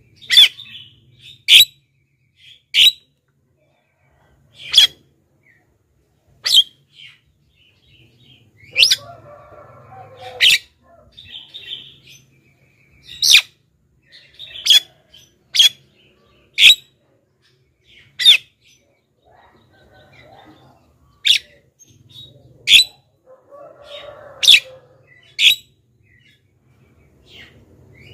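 Javan myna (jalak kebo) giving loud, sharp single calls, about sixteen of them, one every one to three seconds.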